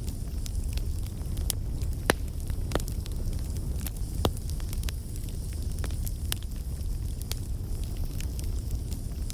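Campfire burning: a steady low rumble of the flames with irregular sharp crackles and pops of burning wood, a few louder pops standing out.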